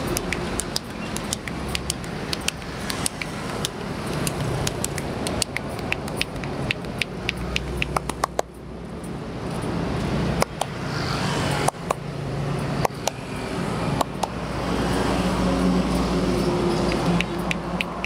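Steady roadside traffic, over which come many quick, sharp slaps and clicks from a street massage, hands working on a bare back. The traffic drops briefly a little past the middle, then swells again.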